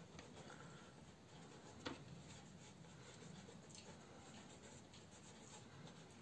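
Faint, soft rubbing of fingertips smearing oil pastel across paper, blending the tones. One light tap about two seconds in.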